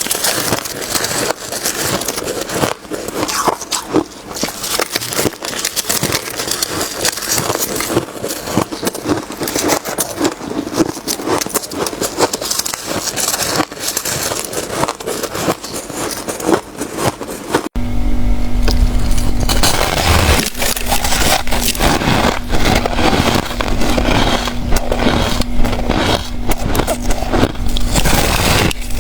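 Close-miked crunching and chewing of white freezer ice and frost, a dense run of crisp crackles and crunches. After an abrupt cut past the middle, the crunching goes on over a steady low hum.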